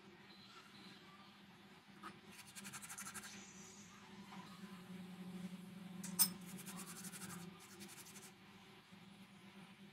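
Hands crushing dried fenugreek leaves (kasuri methi) between the palms and sprinkling them into a bowl: two spells of soft scratchy rustling, with one sharp click between them.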